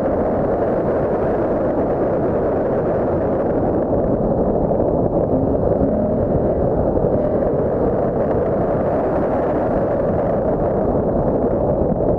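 Ford Mustang GT's V8 engine working hard during an autocross run, heard as a steady, muffled rumble mixed with wind noise on an outside-mounted camera's microphone. Revs drop from about 5,000 to 3,000 rpm as the car slows.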